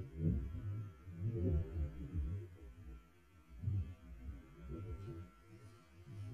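Low, uneven rumble that swells and fades every second or so, with a faint thin tone at times.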